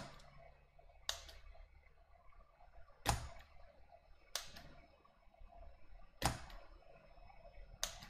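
A series of sharp, separate mechanical clicks, about five of them, one every one to two seconds, over faint room noise.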